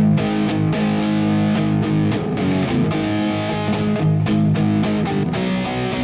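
Instrumental intro of a rock song: guitar chords, with a regular beat of drum hits coming in about a second in.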